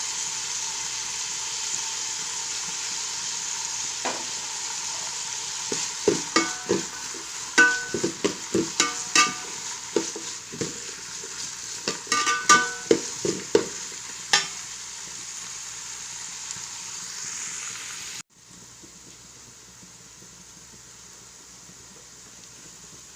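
Chopped vegetables sizzling in hot oil in a frying pan. From about six to fourteen seconds in, a spatula knocks and scrapes against the pan as they are stirred. Near the end the sizzle drops suddenly to a quieter hiss.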